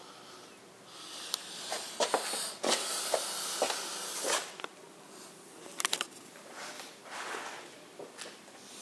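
Handling noise: rustling, scattered clicks and a few bursts of hiss, the loudest about three to four seconds in. No engine is running.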